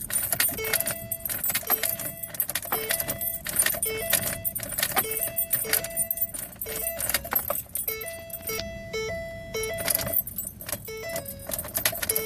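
Keys jangling and rattling with many irregular sharp clicks, over a repeating two-note tone that switches back and forth every fraction of a second.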